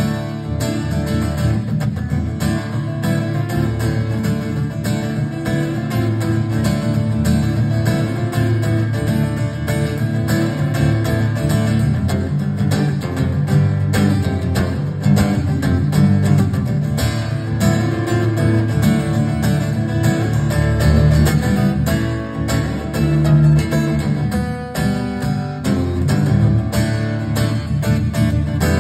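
Solo acoustic guitar strumming a steady country rhythm, with no singing.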